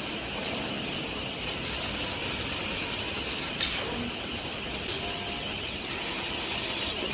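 CNC laser pipe-cutting machine cutting square pipe: a steady hiss from the cutting head, with one sharp click about three and a half seconds in.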